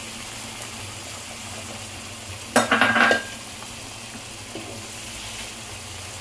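Hot milk-and-water mixture sizzling and bubbling as it is poured into roasted semolina in a frying pan and stirred with a wooden spoon, the liquid stage of making suji halwa. A brief loud clatter of utensils about two and a half seconds in.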